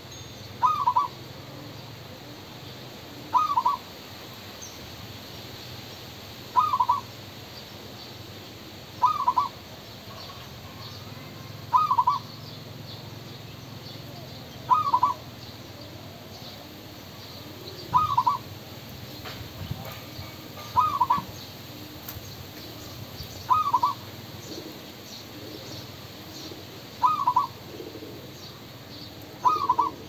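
Zebra dove cooing: a short, quick trilled coo repeated about every three seconds.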